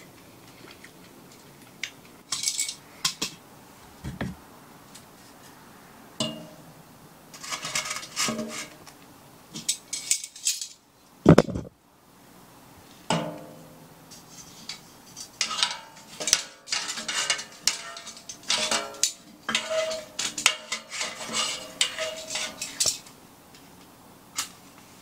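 Hard objects being handled: repeated clinks, knocks and clatter, in short busy runs, with one loud thump about eleven seconds in.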